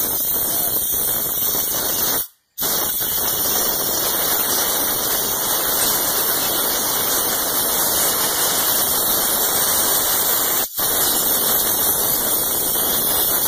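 Compressed air hissing steadily as it blows silt out of a BMW E30 engine's clogged coolant passages, breaking off briefly twice.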